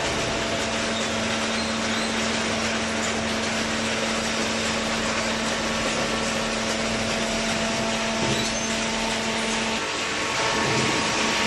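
Hydraulic cardboard baler running: a steady machine whir with a constant hum, which drops out for a moment near the end and comes back a little louder.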